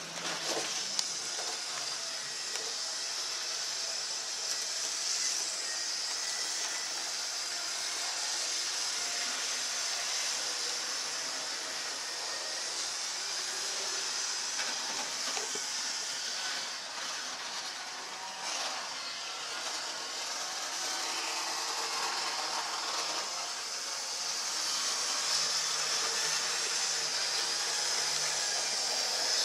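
HO-scale model train running on the layout's track: a steady electric whir with a hiss.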